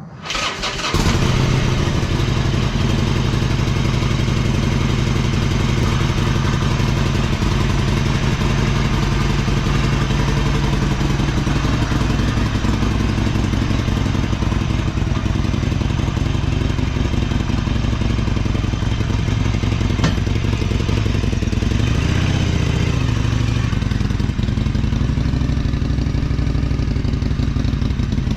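Harley-Davidson Iron 1200 Sportster's air-cooled 1200 cc V-twin starting about a second in, then idling steadily with a deep, even beat. There is one short throttle blip a little past two-thirds of the way through.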